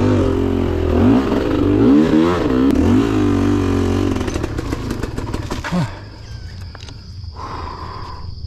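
Dirt bike engine revving up and down in short throttle blips over rough ground, with the bike's parts clattering. About six seconds in it drops to a quieter idle as the bike slows behind the rider ahead.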